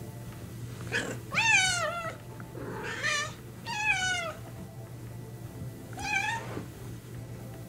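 Domestic cat meowing: four drawn-out meows spread over about five seconds, each sliding down in pitch at its end, the loudest about one and a half seconds in.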